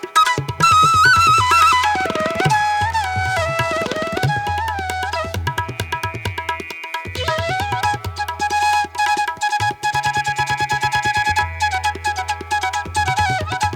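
Instrumental music: a melodic line sliding between notes over a rapid hand-drum rhythm with deep, resonant low strokes.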